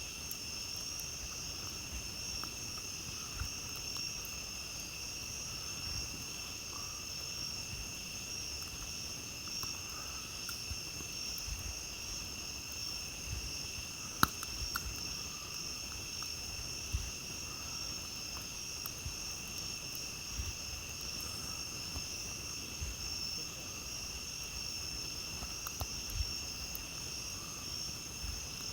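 A steady night chorus of crickets trilling continuously, with scattered faint crackles and pops from a campfire; one sharper pop about halfway through is the loudest sound.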